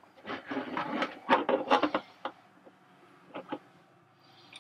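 Handling noise as a plastic suction hose is pulled out of a plastic jug under a sink: rattling and rubbing for about two seconds, then a few light clicks.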